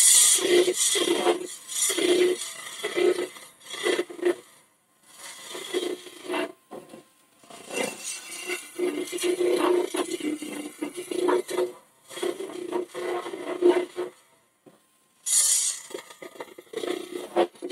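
Hollowing tool cutting inside a spinning holm oak hollow form on a wood lathe: a scraping hiss in bursts of a second or so, with short pauses between cuts.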